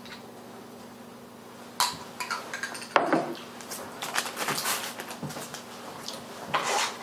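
Metal utensils clinking and scraping against a glass jar and a wooden cutting board: quiet at first, then a run of sharp knocks and scrapes starting about two seconds in, the loudest about a second later.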